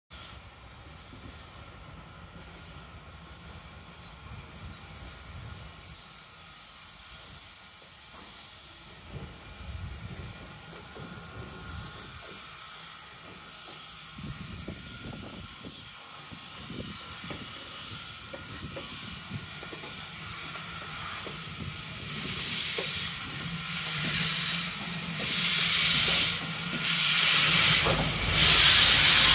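Southern 401, a 2-8-0 steam locomotive, moving slowly and faint at first. From about twenty seconds in, loud rhythmic bursts of hissing steam grow as the engine draws close, with steam blowing from its cylinder cocks.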